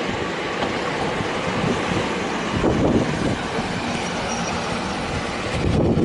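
Ex-Seibu 801 series three-car electric train running past at close range as it pulls into the terminus, with a steady rumble of wheels on rails that swells about halfway through and again near the end.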